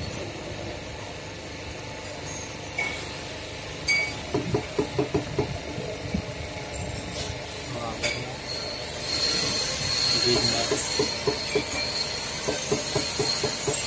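Hydraulic power pack running to work a bank of hydraulic jacks: rapid metallic clinking in short runs, and from about nine seconds in a steady high whine over a hiss.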